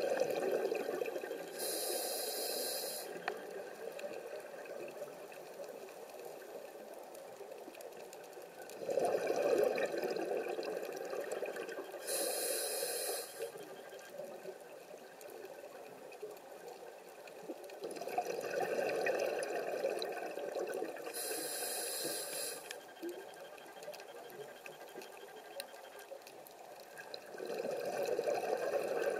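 Scuba diver breathing through a regulator, heard underwater: a rush of exhaled bubbles, then a short high hiss as the diver inhales. The cycle repeats about every ten seconds.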